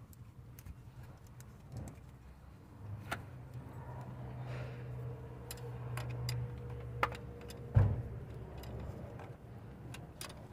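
A spanner clicking and clinking on an alternator's cable terminal nut as it is tightened, in scattered small metallic ticks. A low steady hum runs through the middle, and a single loud thump comes about eight seconds in.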